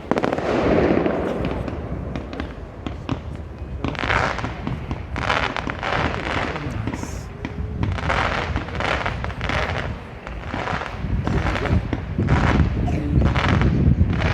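Fireworks display: a run of sharp bangs and crackling bursts, coming thick and fast from about four seconds in, with deeper booms building near the end.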